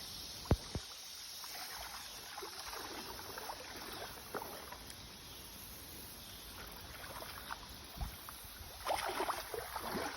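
Steady water noise of a creek with a few sharp clicks: one about half a second in, another near the end.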